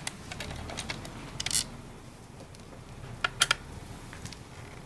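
Small clicks and taps of a T-handle hex key working the skid-plate bolts out of a Sur Ron Light Bee electric dirt bike: a few light clicks near the start, a short cluster at about a second and a half, and another cluster at about three and a half seconds.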